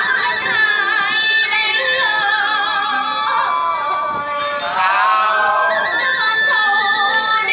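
Live Vietnamese traditional folk music: a high, wavering melody with slides and vibrato, sung or played over accompaniment.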